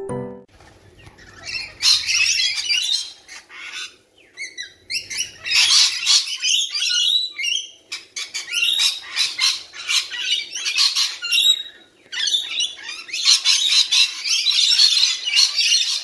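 A flock of rainbow lorikeets screeching and squawking, excited while feeding on seed, with shrill chattering that comes in waves and dips briefly about four seconds in and about twelve seconds in.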